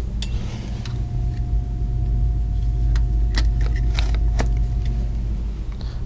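Steady low rumble with a few small clicks about three and a half to four and a half seconds in, and a faint steady tone from about one second to five seconds in.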